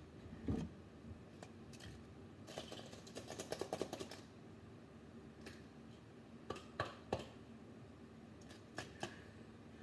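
Plastic bag of orange drink being handled and shaken, a rapid run of crinkling clicks for about a second and a half, followed by a few scattered sharp clicks and knocks.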